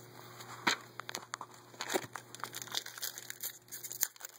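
Wrapper of a baseball card pack crinkling and rustling as the pack is handled and opened, in a run of quick, irregular crackles.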